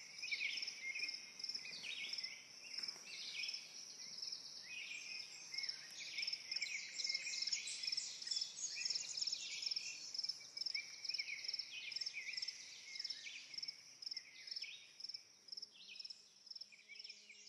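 Woodland birdsong: several birds singing short, overlapping high chirps and trills, over a high note pulsing evenly throughout.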